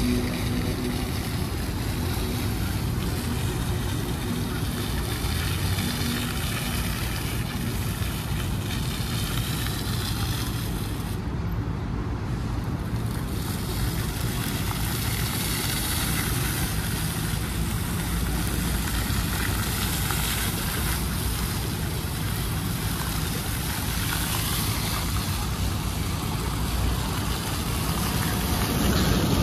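A motorboat engine running with a steady low rumble, mixed with water and wind noise on the microphone.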